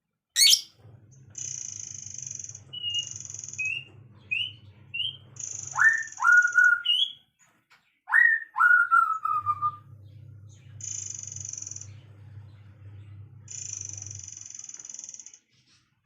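Songbirds calling: a loud upward-sweeping whistle, a run of short rising chirps, then two pairs of clear whistled notes that dip and level off. Repeated high hissing phrases of about a second each and a low steady buzz, which pauses midway, run underneath.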